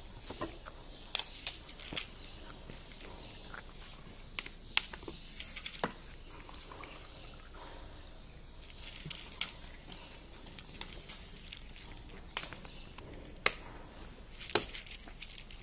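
A cat eating dry kibble from a ceramic plate: irregular crunches, with kibble clicking against the plate. Water is poured briefly from a plastic bottle into a plastic cup about halfway through.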